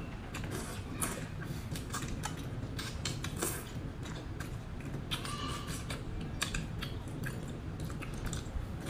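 Close-up chewing, sucking and wet mouth smacks from eating whole cooked shrimp, with many short clicks and a brief slurp about five seconds in, over a steady low hum.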